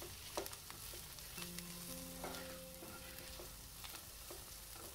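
Chopped onions with bay leaves, dried red chillies and chilli powder sizzling in oil in a nonstick frying pan, as a spatula stirs and scrapes through them in scattered clicks. The onion-spice masala is frying to done.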